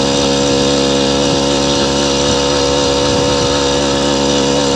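Small engine of a motorized bicycle running steadily under way, holding an even pitch with no change in speed.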